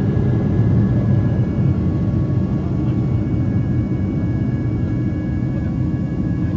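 Steady cabin noise of a jet airliner in flight, heard beside the wing-mounted turbofan engine: a low, even rumble of engine and rushing air, with faint thin whining tones over it.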